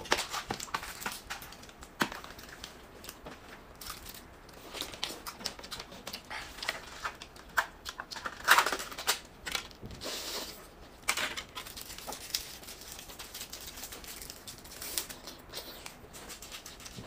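Irregular clicks, taps and crinkling rustles of close handling, with one sharper crack about eight and a half seconds in.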